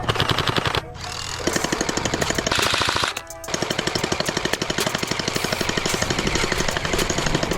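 Electric gel blaster firing full-auto in long, rapid bursts, a fast even rattle of shots, with brief pauses about a second in and again after three seconds.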